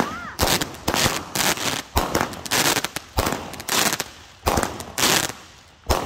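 TNT Blue Magic multi-shot firework cake firing fast, a sharp launch bang about twice a second, each followed by the spray of its bursting stars.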